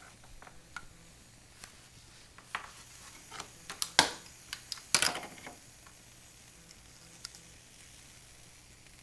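Scattered sharp clicks and knocks over a faint steady hum, the loudest about four and five seconds in: handling noise as the camera is moved around.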